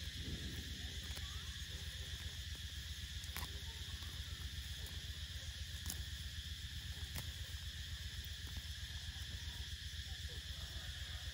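Insects chirring steadily in the surrounding vegetation over a low steady hum, with a few sharp clicks scattered through it.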